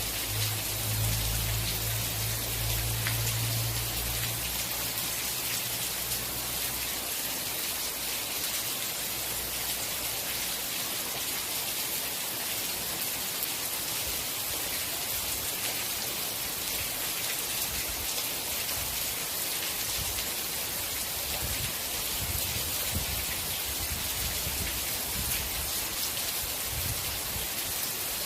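Steady heavy rain falling on a surface, a dense even hiss of drops. A low rumble sits under it for the first several seconds and comes back in pulses later on.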